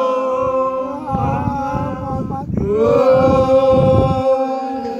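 Male voices singing a folk song in long drawn-out held notes. The voice breaks off about two and a half seconds in, then the next note slides up and is held again.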